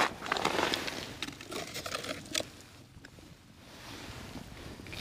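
Boots crunching on snow and ice, with clothing rustling, for about the first two and a half seconds as someone reaches a tip-up hole and kneels, then it drops to a faint hiss.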